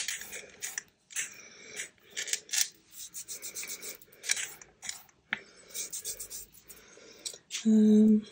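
Hands rubbing and pressing fabric and lace scraps onto a glued card tag: a run of quick, irregular rustling and scratching strokes. Near the end comes a short hummed "mm".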